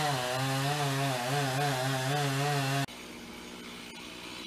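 Two-stroke chainsaw running at high speed, its engine pitch wavering up and down as it works. It cuts off abruptly about three seconds in, leaving quieter outdoor background.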